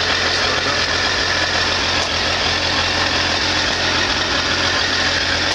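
Triumph T595 Daytona's 955 cc three-cylinder engine idling steadily.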